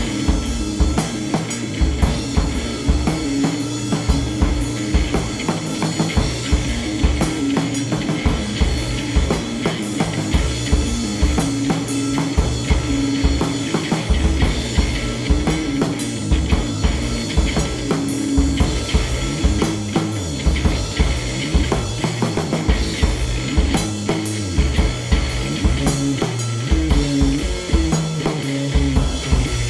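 Band music led by a drum kit playing a busy, steady beat of bass drum and snare hits under held low notes.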